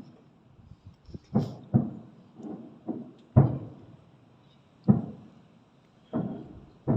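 Fireworks shells bursting overhead: a run of about nine sharp bangs at irregular spacing, each dying away quickly. The loudest bangs come about a third of the way in and just before the middle.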